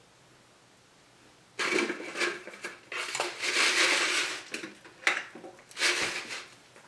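Tableware and packaging being handled close to the microphone: rustling and clattering in several loud bursts, beginning about a second and a half in.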